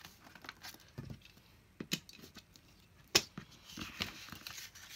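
Paper and a steel ruler being handled on a cutting mat: scattered light clicks and taps, one sharp click about three seconds in, and a short rustle of paper about a second later.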